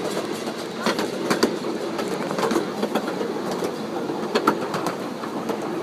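Small open passenger cars of a ride-on train rolling along: a steady running noise with irregular clicks and knocks from the cars.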